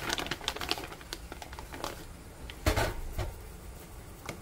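Light clicks and taps of dishes and utensils being handled on a table, with one heavier dull thump a little past halfway.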